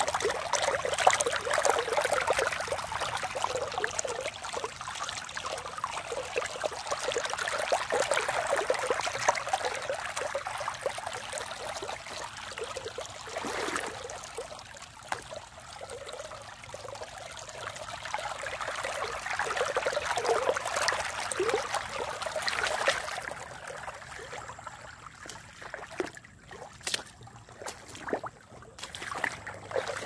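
Shallow small river trickling and babbling over stones and around reeds, a steady rushing splash. About three-quarters of the way through it becomes softer and more broken, with scattered small splashes.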